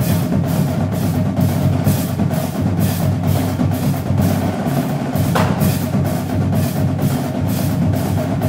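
Background music with a steady drum beat, about two hits a second, over a sustained low bass line.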